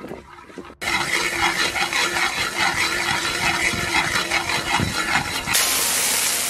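Rock sugar melting in a little oil in an iron wok, sizzling and crackling as it is cooked into caramel (sugar colour); the sizzle starts suddenly about a second in and turns hissier near the end.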